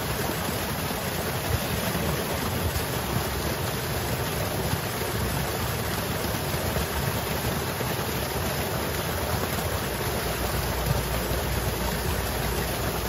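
A small stream of water pouring down a cut in a muddy bank, a steady rushing splash.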